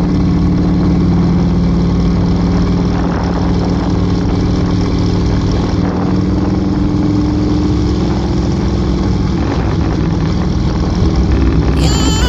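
Motorcycle engine running at a steady cruise under wind and road noise. The engine note shifts about nine seconds in.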